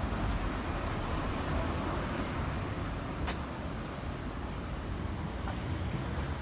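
Steady city street traffic noise, with a car driving along the road close by. A couple of short sharp clicks stand out about halfway through and near the end.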